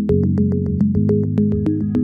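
Background electronic music: synthesizer chords and bass over a steady, quick ticking beat.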